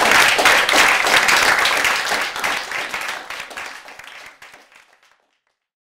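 Audience applauding, the many claps fading away over the last few seconds.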